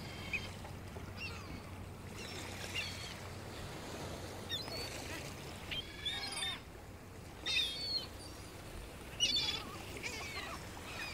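Birds giving short, high, wavering cries every second or two over a faint steady wash of sea.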